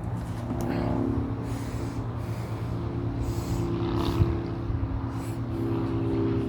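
A motor vehicle running steadily, with a low hum and a few brief rushes of noise.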